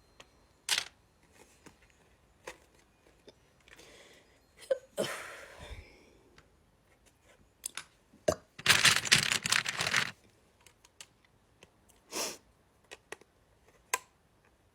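A person hiccuping now and then, short sudden gulps several seconds apart, in a small quiet room. About halfway through comes a louder burst of rustling and handling noise lasting over a second, with a few light clicks scattered around.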